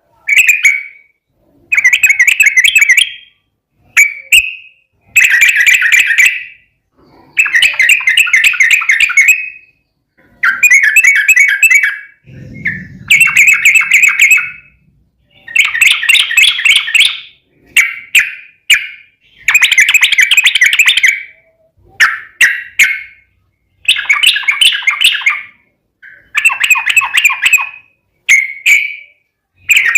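Yellow-vented bulbul (trucukan) singing: about a dozen quick, bubbling, chattering phrases, each around a second long, with short pauses between them.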